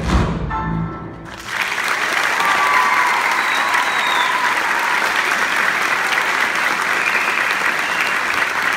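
A cappella choir's final sung chord cutting off about a second in, followed by sustained audience applause.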